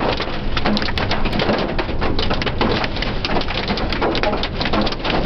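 Heavy rain and hail pelting the car's roof and windshield: a dense, rapid, irregular patter of hits, heard from inside the car.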